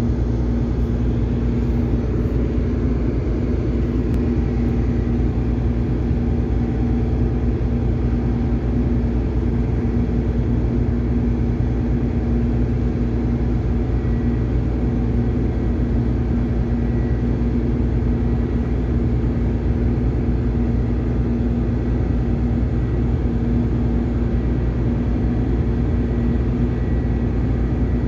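Ship's diesel engines and machinery running steadily: a constant low rumble with a steady hum tone over it.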